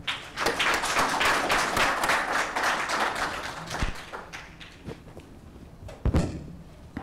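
Audience applauding: a dense patter of clapping that fades away after about four seconds, followed by a single thump about six seconds in.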